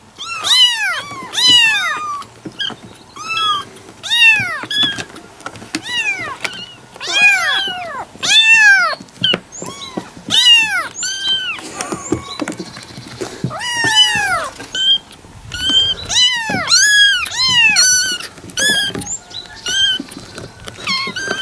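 Kitten meowing over and over, high-pitched meows that each rise and fall in pitch, about one a second, with a quicker run of short meows late on.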